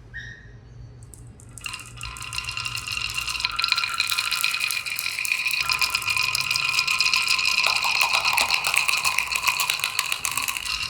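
Many glass marbles rolling and clattering down a marble run: a dense rattle of quick clicks that starts about a second and a half in and keeps going.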